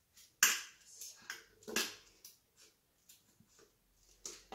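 Spatula scraping and knocking against a stainless steel Thermomix mixing bowl as kneaded bread dough is scraped out into a glass bowl: several short scrapes and knocks.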